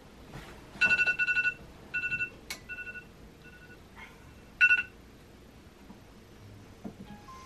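Smartphone alarm beeping in short bursts of rapid two-tone beeps, loudest about a second in and stopping about five seconds in. A single sharp click comes about halfway through.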